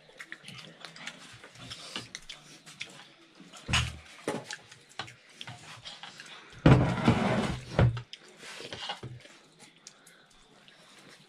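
Eating sounds at a table: chewing and slurping, with spoons clicking against plates and soup bowls. A louder rushing sound comes about seven seconds in and lasts just over a second.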